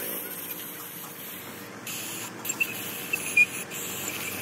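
Steel pry bar clicking and scraping against metal inside a Cat 966F wheel loader's wet-disc brake housing, with a few sharp knocks and short high squeaks after about two seconds.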